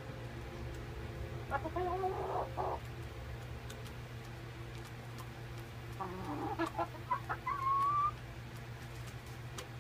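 Young Rhode Island Red and Barred Rock hens clucking in two short spells of calls, the second ending in a drawn-out rising note, over a steady low hum.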